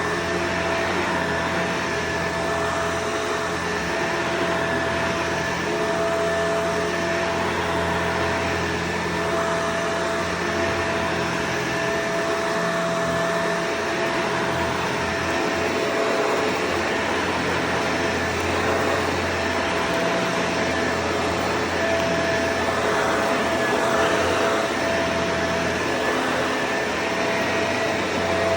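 Vacuum cleaner running steadily: a constant motor whine over a rushing hiss of air.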